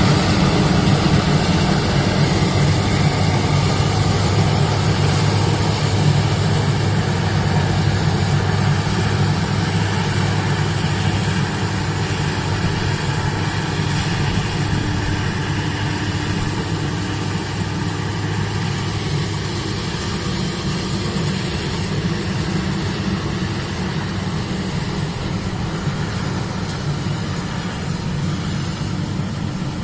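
Rice combine harvester's engine running steadily with a deep hum, gradually getting a little quieter over the second half.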